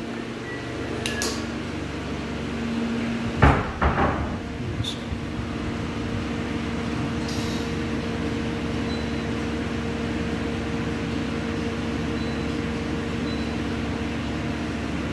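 Two sharp knocks about three and a half and four seconds in, like a door or cabinet shutting, then a steady machine hum with a low, even tone that runs on unchanged.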